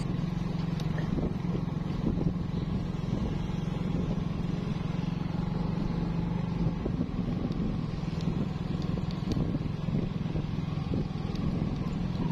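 Motor scooter's engine running at a steady, low hum while riding along a rough dirt road, with road noise underneath; the hum eases a little past the middle.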